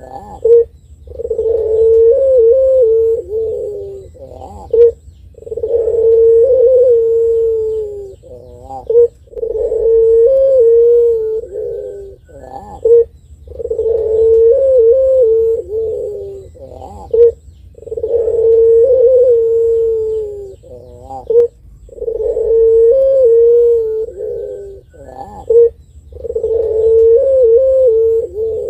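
Ringneck dove (Barbary dove) of the long-voiced 'pelung' type cooing over and over: about seven calls, one every four seconds or so, each a short, sharp rising note followed by a long, drawn-out low coo.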